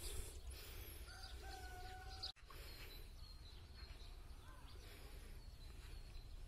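A chicken in the distance gives one drawn-out call lasting about a second, faint over a low rumble on the microphone; the sound drops out for an instant just after it, and small birds chirp faintly later.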